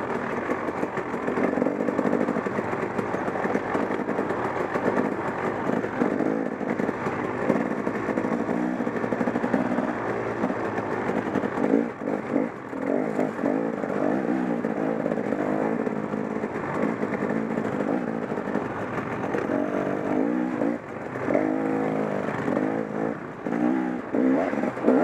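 KTM 300 XC-W dirt bike's two-stroke single-cylinder engine running under way, its pitch rising and falling as the throttle is worked on and off.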